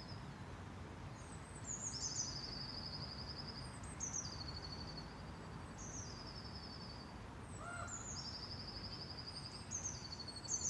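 A small songbird singing high, repeated phrases, each a quick falling note followed by a rapid trill, about every two seconds. A brief lower call from another bird sounds about eight seconds in, over a steady low background rumble.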